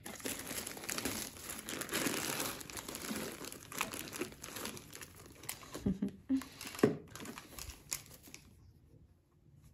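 Crinkling and rustling as a bundle of Christmas string lights and their wrapping is handled and pulled apart, with a few sharper clicks near the end before the handling dies down.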